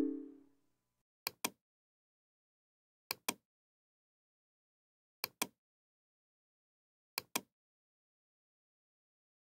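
Computer mouse clicking, four pairs of short clicks spaced about two seconds apart. At the very start, the fading tail of a Windows alert chime as an error dialog pops up.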